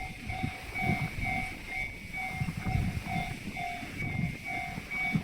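Japanese level-crossing alarm ringing its repeated electronic 'kan-kan' at about two strokes a second, over the low rumble of a freight train.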